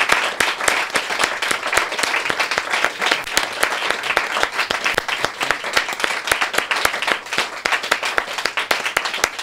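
Audience applauding steadily: many hands clapping at once, a dense patter of claps.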